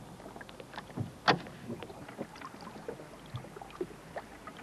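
Small knocks and clatter from people working in a rowboat on the water, with one sharper knock about a second in.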